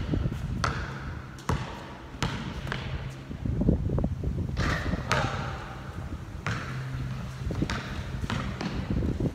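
A basketball bouncing on a hard outdoor court as it is dribbled and played, a string of separate sharp knocks at an uneven pace.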